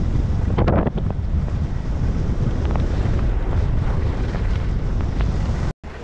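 Wind rumbling on a body-mounted action camera's microphone while skiing downhill at speed, with the hiss of skis sliding over packed snow, briefly louder and brighter about a second in. The sound drops out for an instant just before the end.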